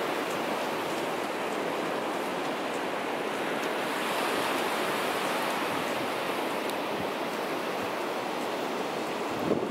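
Sea surf breaking and washing onto a sandy beach: a steady, even rushing. A brief knock stands out near the end.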